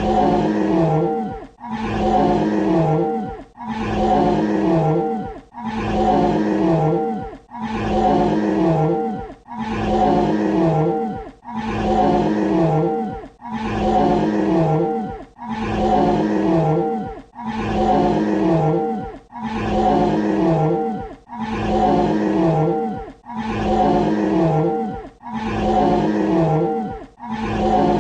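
Dinosaur roar sound effect: the same deep, growling roar played over and over in a loop, about one every two seconds, each ending with a falling pitch before a brief gap.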